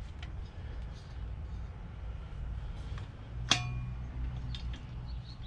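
Metal parts clinking during hand work on a motorcycle exhaust: a few light clicks, then one sharp metallic clink about three and a half seconds in that rings briefly. A low steady hum runs underneath.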